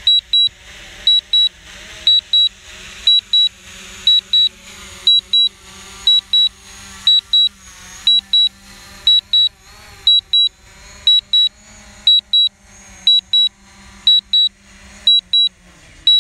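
Drone remote controller beeping in pairs, one high double beep about every second: the warning for a low flight battery. The beeping stops near the end.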